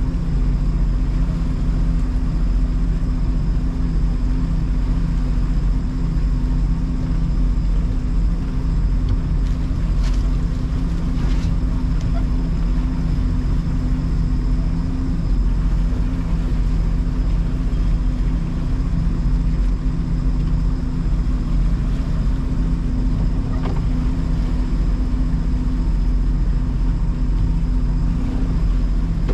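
Motorboat engine running steadily, a constant low drone with no change in speed.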